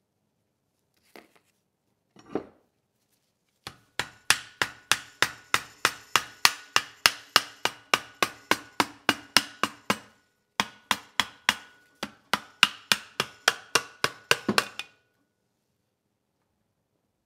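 Rapid, evenly spaced hammer taps on a small engine's aluminium valve cover, about three a second with a short pause about ten seconds in, each tap ringing briefly. The taps knock the stuck cover loose so it can be lifted off.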